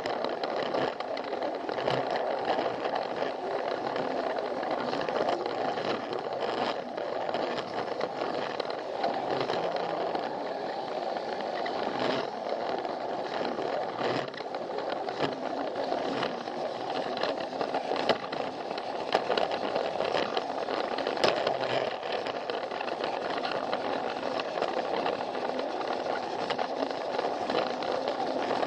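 Battery-powered Plarail toy train running along plastic track: the steady whir of its small motor and gears with a light rattle from the wheels, and now and then a sharp click.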